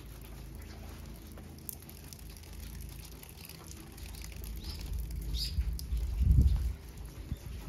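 Outdoor ambience: a low rumble on the microphone that swells sharply about six seconds in, with a few faint, short bird chirps just before it.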